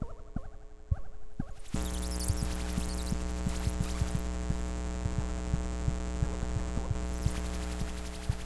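Buchla and Eurorack modular synthesizer soundscape: a steady layered drone of held tones, with scattered short low pulses and clicks. About two seconds in, a deep hum and a high shimmering texture join it.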